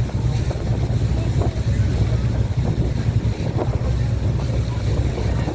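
Passenger boat's engine running with a steady low drone while under way, mixed with wind noise on the microphone and the rush of water.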